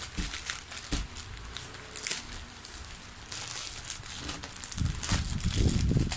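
Plastic packaging crinkling and rustling as a parcel is unwrapped, with scattered sharp crackles. From about five seconds in, heavier low knocking and rubbing comes in as the package is handled.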